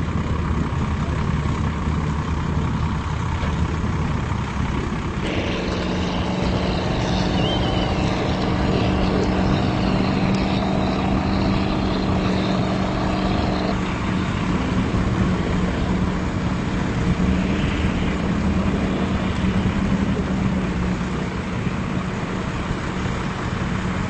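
An engine running steadily. A second, higher droning tone joins about five seconds in and cuts off about fourteen seconds in.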